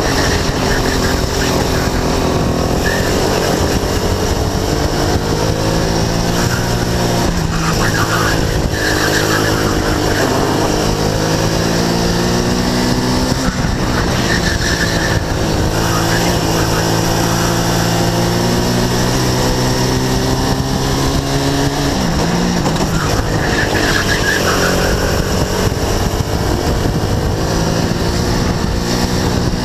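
RX-250 racing kart engine at full throttle, its pitch climbing as the kart accelerates and dropping sharply several times, about 7, 13 and 22 seconds in, as it slows for corners. A steady rush of wind and road noise runs underneath.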